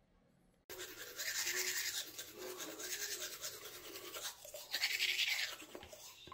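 Teeth being brushed with a bamboo toothbrush: quick back-and-forth scrubbing strokes that start suddenly about a second in and swell twice. It sounds much like scrubbing sneakers with a brush.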